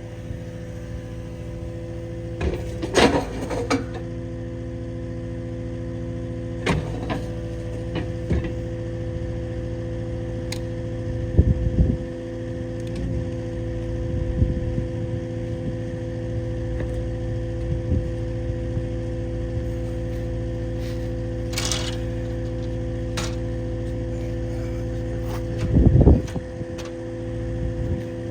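An engine idling steadily at an even pitch, with a few sharp metal clanks and knocks over it: several clustered near the start, one near the middle and one shortly before the end.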